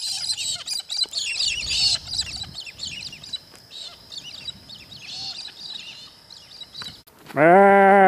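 Many birds chirping together in a dense chorus. Near the end a sheep gives one loud bleat lasting about a second.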